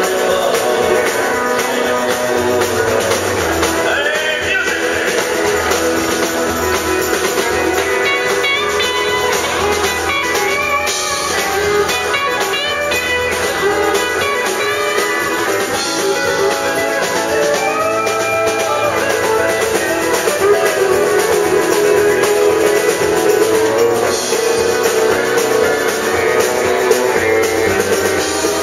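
Live country-western band playing, led by acoustic and electric guitars with keyboard and drums.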